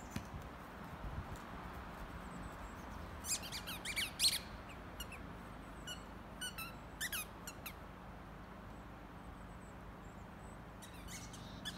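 Short, high-pitched squeaks in irregular clusters, a few at a time, over faint steady background noise.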